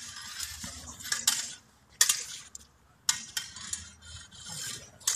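Steel heavy sabres clashing in a fencing bout: several sharp metallic strikes, roughly a second apart, with the blades grinding against each other between the strikes.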